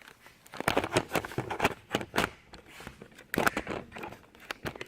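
Irregular clicks, knocks and rattles of things being handled. There is no steady motor or engine sound.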